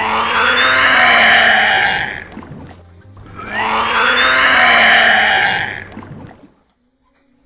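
Horror-film soundtrack effect: two loud, swelling rushes of noise with rising pitch sweeps over a low hum, each about two and a half seconds long. It fades to near silence about six and a half seconds in.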